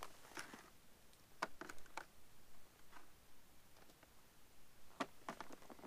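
Faint scattered clicks and light taps, about nine in all, from small bits of fishing tackle being handled at a bankside box.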